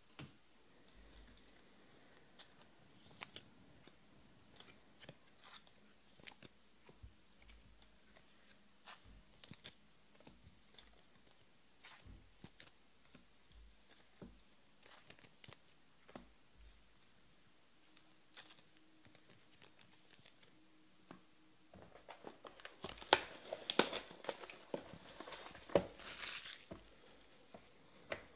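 Faint scattered light clicks and taps, then about 22 seconds in a run of crinkling and tearing as the plastic wrapping is pulled off a box of trading cards.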